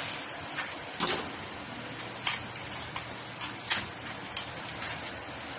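Plastic wrapping around a glass bottle being snipped with scissors and peeled off by hand: a handful of sharp crackles and snips over a steady background hiss.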